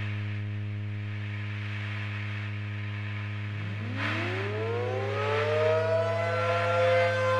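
Outdoor civil defense siren winding up over a steady low hum: from about three and a half seconds in, its wail rises in pitch, then levels off into a steady tone and keeps getting louder toward the end.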